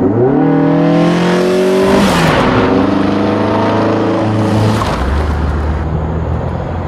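A car engine revving: its pitch climbs, drops steeply about two seconds in with a rush of noise, climbs again, then settles into a low steady hum near the end.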